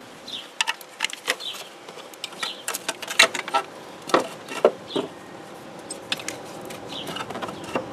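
Scattered clicks and knocks of hard plastic and metal as a powertrain control module on its metal bracket is pushed and slid back into its mount in the engine bay, loudest around the middle. Short high chirps sound now and then behind it.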